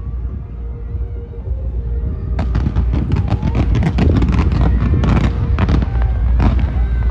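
Fireworks crackling. After about two seconds of low rumble, a dense run of rapid pops and crackles from crackling-star shells sets in, with a few louder bangs among them.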